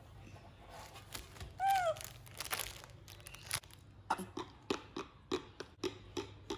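Baby monkey giving one short, falling squeaky call, then rustling and a run of short, sharp sounds at about three a second.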